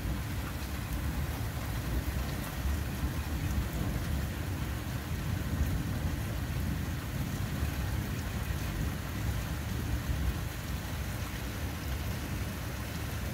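Thunderstorm: steady rain with a low, continuous rumble of thunder.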